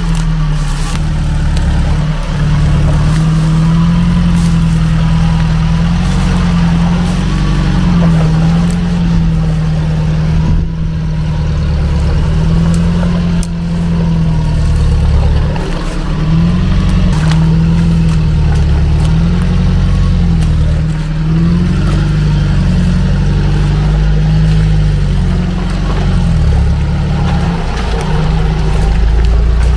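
UAZ 469 off-roader's 2.5-litre engine revving up and down over and over as it labours through deep mud and water, its pitch rising and falling every second or two.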